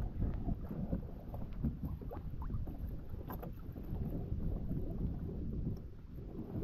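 Water sloshing and splashing against a plastic kayak hull as a swimmer in a drysuit hauls himself across it, with a few light knocks on the hull and a low rumble of wind on the microphone.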